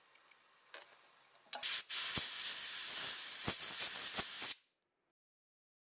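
Compressed air hissing steadily from a nozzle onto a watch dial just washed with lukewarm water, for about three seconds before cutting off sharply, with a few small clicks along the way.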